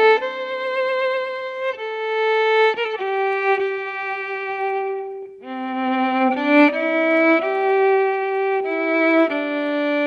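Violin playing a slow melody of held notes with vibrato, with a brief pause about five seconds in: the instrumental opening of a song.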